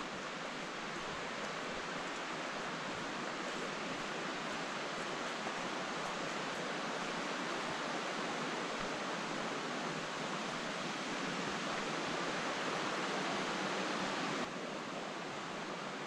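Steady rush of the Vartry River flowing through the gorge, growing slightly louder and then dropping suddenly in level near the end.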